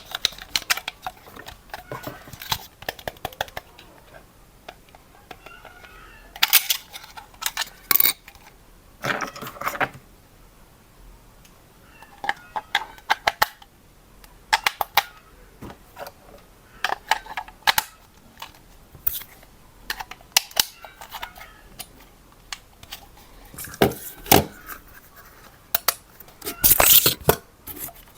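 Plastic toy parts and packaging being handled: irregular clicks, knocks and short rustling scrapes with quiet gaps between them.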